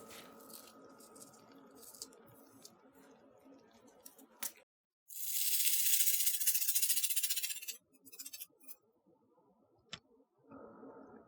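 Bubble slime crackling: a dense, high crackle of many tiny air bubbles popping for about three seconds around the middle, with a few scattered clicks before and after.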